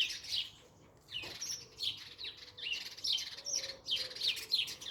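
A group of birds chirping noisily, with many short high chirps overlapping and a brief lull about a second in.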